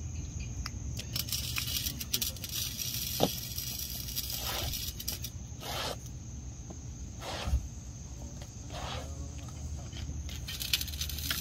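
Outdoor ambience of insects droning steadily at a high pitch, with a low rumble underneath. A few brief rustling, scraping noises come through, and a sharp click about three seconds in is the loudest sound.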